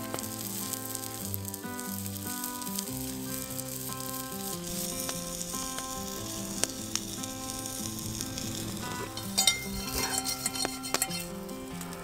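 Sausage sizzling in a black steel pan over a campfire, a steady hiss, with a burst of sharp pops near the end. Soft background music with held notes plays underneath.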